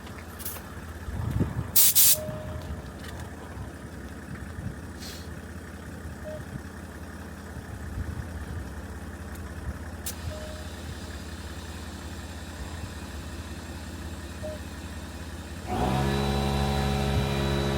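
Short bursts of compressed-air hiss from a tyre being inflated off a workshop air line, the loudest about two seconds in. Near the end a machine starts up and runs with a steady hum.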